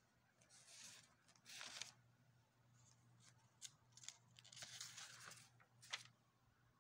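Faint paper rustling and crinkling in a handful of short bursts as sheets of a lined notebook are handled and turned over.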